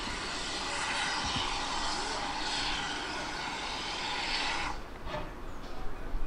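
A steady hiss of escaping steam from the GWR 6400-class pannier tank No. 6412 lasts about five seconds and cuts off suddenly. A low rumble builds near the end.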